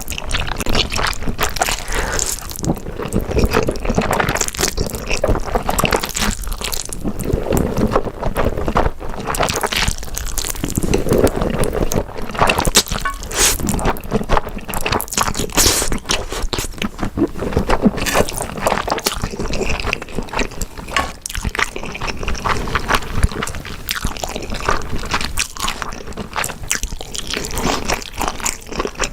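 Close-miked eating of grilled beef intestines and spicy fire-chicken noodles: continuous wet chewing, squishing and crunching, made of a dense run of small clicks and smacks.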